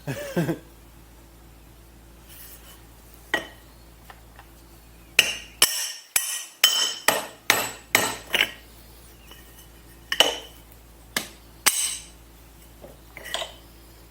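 Hammer blows on the metal parts of a Polaris jet ski pump, about a dozen sharp strikes that ring briefly: one, then a quick run of about eight, then a few spaced out. The work is an attempt to knock a stuck, corroded impeller loose.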